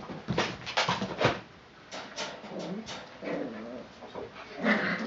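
Miniature schnauzer puppies at play: a quick run of short, sharp sounds, then wavering whines.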